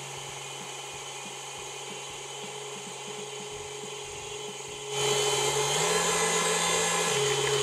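Electric stand mixer running steadily with its whisk attachment, beating whipping cream to churn it into butter. The motor gets noticeably louder about five seconds in.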